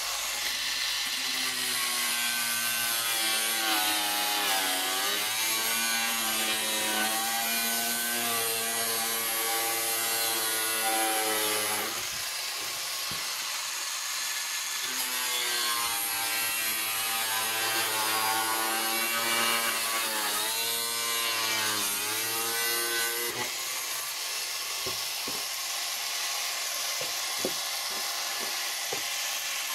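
Cordless angle grinder cutting through a plastic oil container. The motor's pitch dips and recovers as the disc bites into the plastic, with a break about twelve seconds in and a rougher, noisier stretch near the end.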